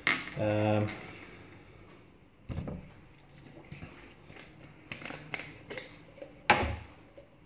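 Spirit burner, its cap and a bottle being handled and set down on a table: a sharp knock about two and a half seconds in, small clicks after it, and a louder sharp knock near the end.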